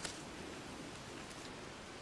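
Faint, steady hiss with light rustling as a cat paws and moves through loose dry soil and straw, and one short click right at the start.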